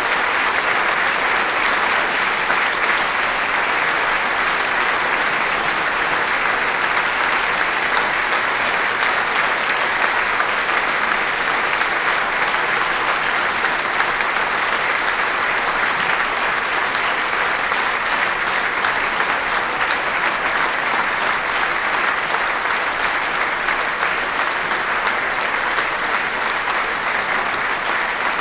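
Audience applauding steadily: dense, sustained hand-clapping from a theatre or small concert-hall audience, with no breaks.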